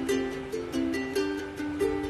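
Background music: a light plucked-string tune over a steady beat.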